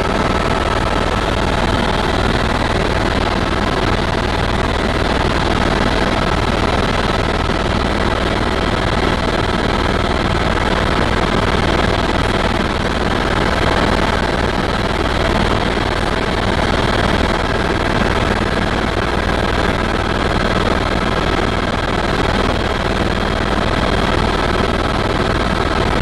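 Helicopter in flight, heard from inside the passenger cabin: a steady, loud drone of engine and rotor, with a few constant whining tones over it.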